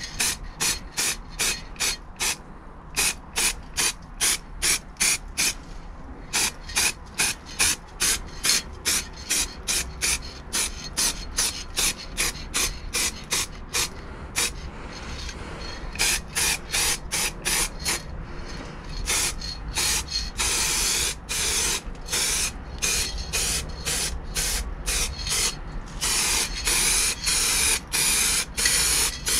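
Aerosol can of satin black paint, fitted with a clip-on pistol-grip trigger, hissing in quick short bursts, about three a second. In the last ten seconds the bursts become longer, almost continuous spraying. This is a light coat going on over stone-chip paint.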